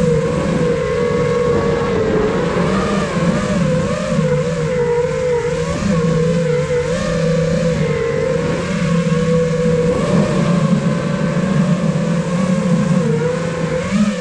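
iFlight Nazgul Evoque F5 HD 5-inch FPV quadcopter on a 4S battery: its brushless motors and propellers whine steadily, the pitch wavering up and down all the time as the throttle changes during freestyle flight. It is heard close-up from the camera on the drone's own frame, with a rush of air under the whine.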